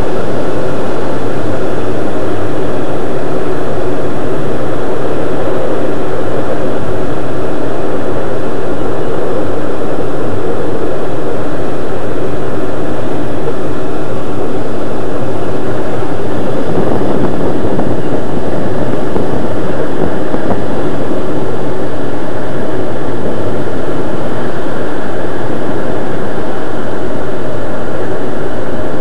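Loud, steady rush of air past the canopy of an ASK-21 two-seat glider on final approach, with no engine sound.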